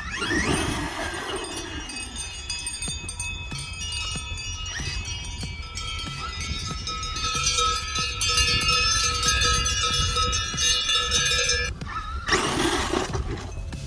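Cowbells on grazing cows ringing in a steady chiming layer of several pitches. It opens with a brief rising electric-motor whine and has a short, louder rush of noise about twelve seconds in.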